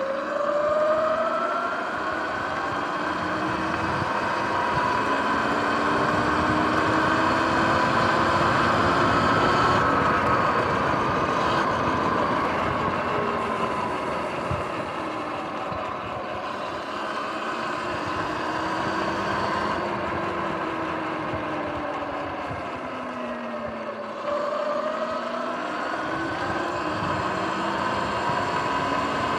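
Sur-Ron X electric dirt bike's motor whining as it rides, the pitch of the whine climbing as it speeds up, falling as it slows about three-quarters of the way through, then climbing again. Underneath is a steady rush of wind and tyre noise.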